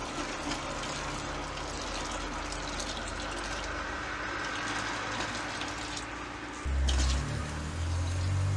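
Water pouring steadily from a stainless steel kettle into a plastic basin of water, splashing. About seven seconds in, background music with a deep bass comes in over it.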